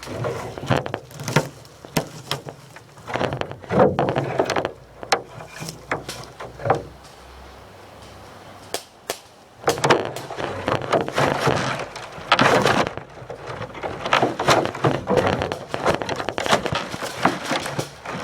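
Rustling and crackling through dry brush and leaves, with many sharp snaps and clicks of twigs breaking underfoot.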